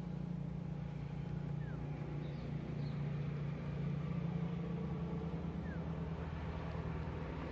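Steady low mechanical hum, like an engine or motor running, with a few faint short falling whistles.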